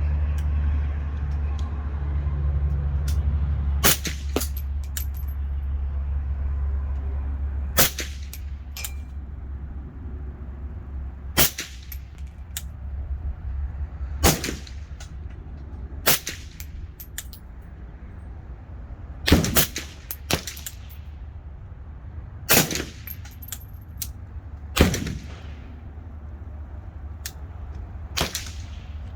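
Suppressed CZ Bren 2 MS rifle in 7.62x39 fired through a Dead Air Nomad suppressor: about ten single shots a few seconds apart, each with a short echo. Under the shots runs a steady low rumble that eases after the first few shots.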